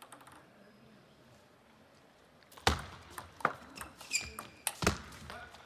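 Table tennis rally: after a few faint ticks and a quiet pause, sharp loud clicks of the celluloid ball striking bats and table start about two and a half seconds in. A brief high squeak comes in the middle of the exchange.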